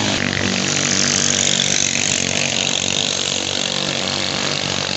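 Small 6-horsepower-class racing boat engines running flat out at high revs in a steady, buzzing drone, over a hiss of rushing water and spray that is strongest in the first couple of seconds.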